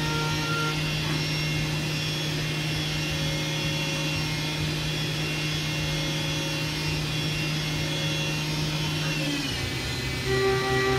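CNC vertical milling machine cutting with an end mill under flood coolant: a steady spindle hum with the hiss of coolant spray and cutting. About nine seconds in the pitch drops, and near the end the sound turns louder, with a different set of steady tones.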